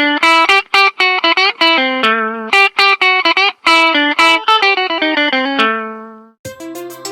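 Lenovo A820 stock ringtone: a quick melody of short plucked, guitar-like notes that fades out about six seconds in. Just after, a different ringtone begins, with a held low tone under higher notes.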